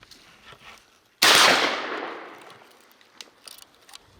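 A single shotgun shot a little over a second in, sharp and loud, its report fading away over about a second and a half.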